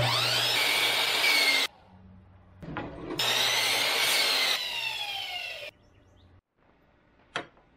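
Sliding compound miter saw making two short cuts through thin wooden strips. Each time the motor whines up to speed and saws through the wood, and the second time it winds down with a falling whine. A single sharp click comes near the end.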